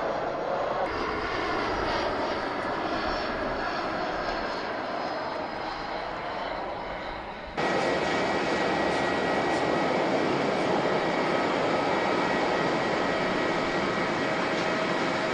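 Airliner engines running on approach. About seven and a half seconds in, the sound cuts abruptly to a louder, steady engine noise with a high whine.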